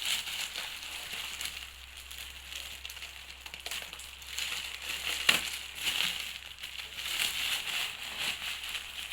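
Plastic packaging crinkling and rustling as it is cut and pulled open, with irregular crackles and a sharp click about five seconds in.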